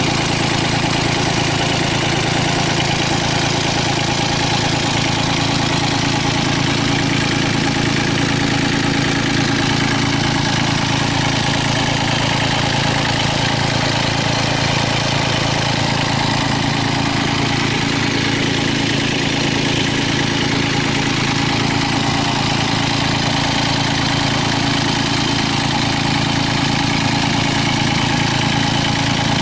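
Mitsubishi MM20CR mini excavator's diesel engine idling steadily, with no revving or change in speed.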